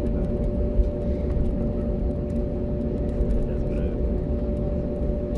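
Steady cabin noise inside an Airbus A321neo taxiing on the ground: a low rumble with a steady engine hum. There is one light bump just under a second in.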